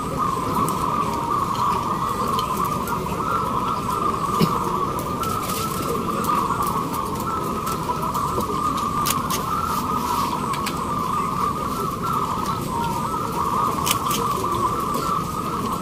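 Many caged zebra doves (perkutut) cooing at once, their calls overlapping into one continuous chorus, over steady low background noise.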